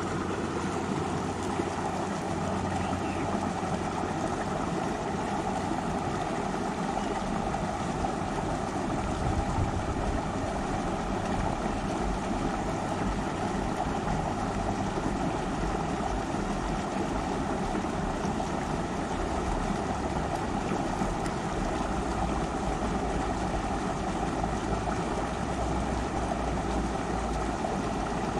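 Flowing river water rushing steadily over rocks, a continuous even wash of noise.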